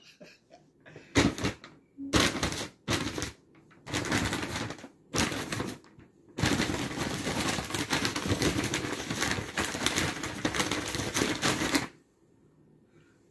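Brown paper take-out bag crinkling and rustling as a cat moves about inside it: several short bursts, then a long continuous stretch of about five seconds that stops about a second before the end.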